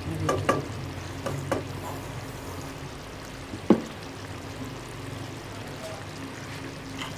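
Wooden spatula stirring a simmering curry in a nonstick wok, with a few short scrapes and clicks in the first two seconds and one sharp knock about halfway through as the spatula is lifted out. After that only a faint steady simmer and low hum remain.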